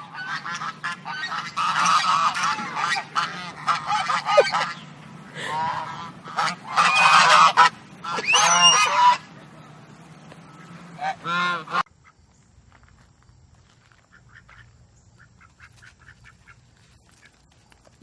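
Several geese honking over one another in a noisy, excited chorus, typical of hungry birds begging for food. About twelve seconds in it cuts off abruptly to a much quieter stretch with only faint short calls.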